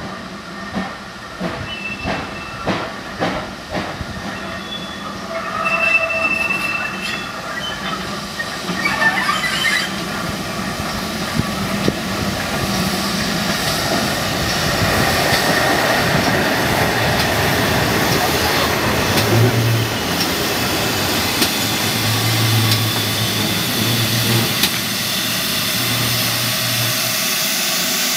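GWR Castle-class 4-6-0 steam locomotive Pendennis Castle running tender-first past at low speed, its sound growing louder as it draws close. Separate knocks from the wheels come in the first few seconds, with a brief thin squeal at about six seconds. The sound then builds into a steady noise of the moving engine.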